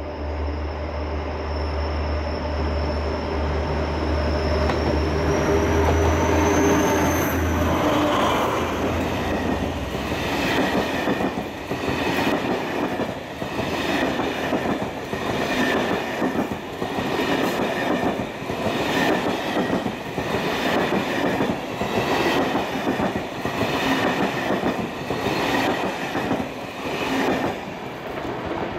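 A diesel-hauled passenger train passes: first the locomotive's engine hum and a high whine rising in pitch as it draws level, then the coaches rolling by with a steady beat of wheel clicks over rail joints, about one a second.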